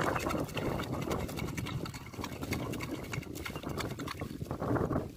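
A hooked fish splashing and thrashing at the water's surface as it is played on a hand line, with irregular sharp slaps and splashes.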